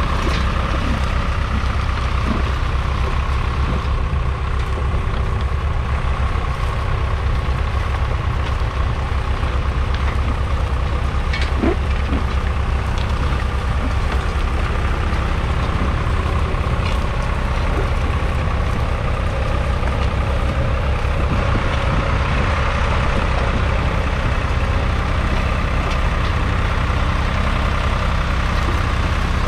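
A 1969 John Deere 820's 2.5-litre three-cylinder diesel engine running steadily under load as the tractor pulls a two-furrow mounted plough through the soil, with a few light knocks.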